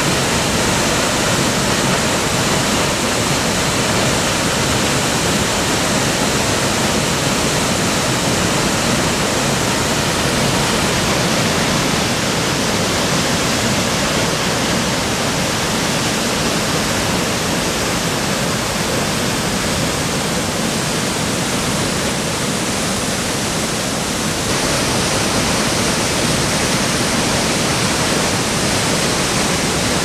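Large waterfall plunging into its pool: a loud, steady rush of falling water, with no breaks, turning slightly brighter and hissier near the end.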